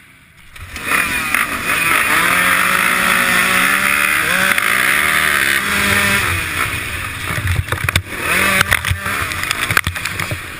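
A row of off-road dirt bikes launching off the start line together, engines revving hard about a second in and climbing through the gears, the onboard bike's engine loud and close. Sharp knocks over the last few seconds as mud roost from the bike ahead strikes the camera.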